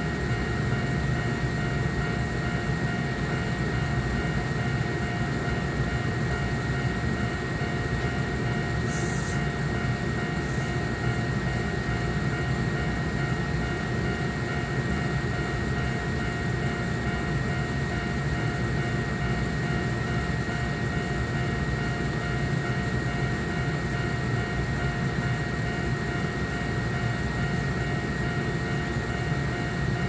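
Kintetsu 3200 series electric train standing at a level crossing, its on-board equipment giving a steady hum, while the crossing's alarm rings on with a steady repeating tone. A brief hiss comes about nine seconds in.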